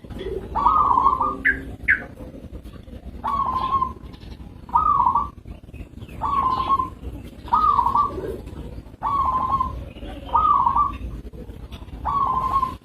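Zebra dove (perkutut) of the local type cooing its song: a run of short rolling coo phrases repeated about every second or so, with a couple of higher notes early on.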